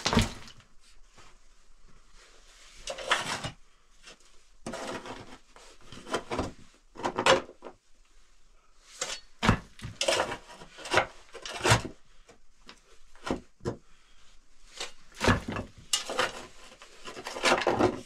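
Stones and gritty dirt being scraped and shifted by hand: irregular scrapes, some lasting about a second, mixed with sharp knocks.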